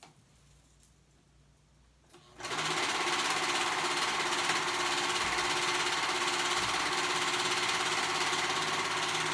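Quiet for about two seconds, then a serger (overlock machine) starts up and runs steadily at speed while sewing a seam.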